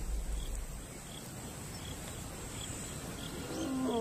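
A pride male lion's territorial roar heard at a distance: the low pulsing grunts at the end of one roar fade out in the first second. A quiet stretch follows with faint insect chirps about twice a second, and near the end the next roar starts to rise.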